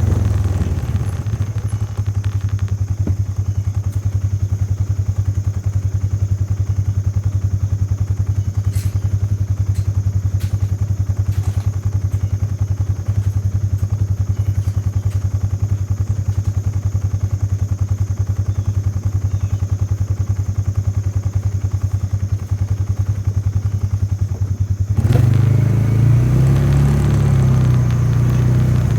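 A motor vehicle's engine running steadily with a low, even hum. About 25 seconds in it gets louder and its pitch wavers up and down.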